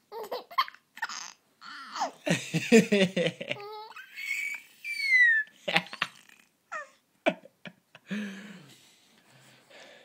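A three-month-old baby laughing: a run of hearty laughs, then a high squealing laugh that falls in pitch, then shorter separate bursts that thin out near the end.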